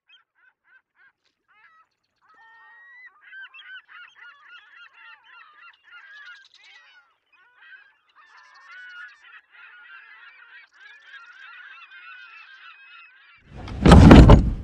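A flock of geese honking: a few single calls at first, then many overlapping calls. Near the end a loud rush of noise cuts in over them.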